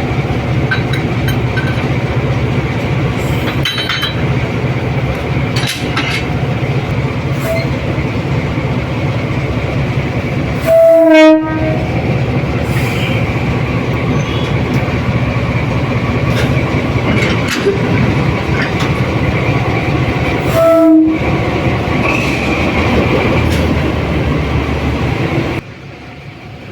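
Broad-gauge diesel-electric locomotive running with a steady low engine drone. Its horn sounds twice, short blasts about ten seconds apart. The sound drops away abruptly near the end.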